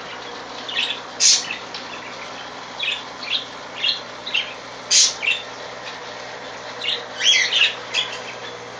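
Pet parakeets chirping in short, scattered calls, with a quick flurry of chirps about seven seconds in.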